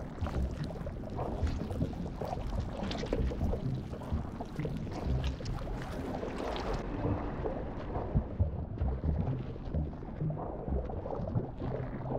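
Underwater ambience: a muffled watery rumble with scattered small clicks and gurgles. The higher hiss drops away about seven seconds in.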